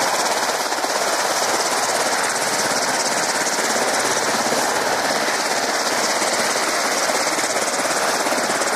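Steady, loud jet engine noise on an aircraft carrier's flight deck: an even, unbroken rush, strong in the middle and high range.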